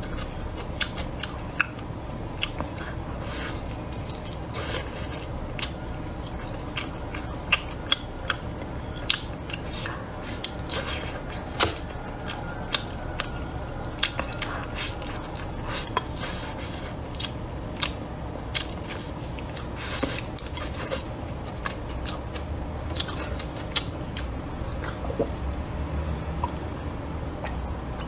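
A person chewing food close to the microphone, with many short sharp crunching clicks scattered through it. The food is a crunchy, crisp mouthful.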